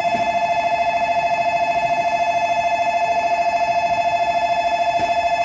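Shinkansen platform train-approach warning bell: an electronic bell trilling rapidly on two steady tones. It starts abruptly and rings on, the signal that a train is coming into the platform.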